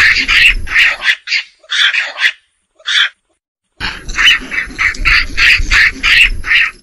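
Macaque calling: short, loud calls repeated quickly, about two to three a second. A run of calls over outdoor background noise gives way after about a second to a few scattered calls, then a second run starts near the four-second mark.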